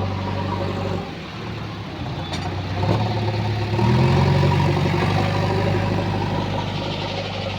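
Diesel engine of a JCB 3DX backhoe loader running, picking up revs about four seconds in and holding the higher speed as it works.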